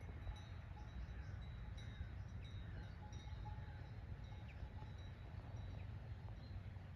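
Faint small bells ringing irregularly, short clear chime tones, over a low steady rumble, with a few short falling chirps.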